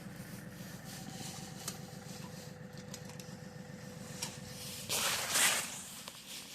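Diesel tractor engine idling steadily, a low even rumble. A short rustling scrape cuts in about five seconds in.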